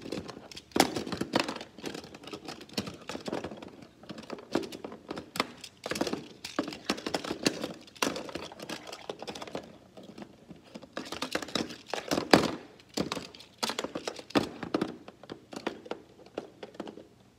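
Small plastic Playmobil hockey figures and pieces handled on a toy rink: irregular clicking and knocking, with the loudest knock about twelve seconds in.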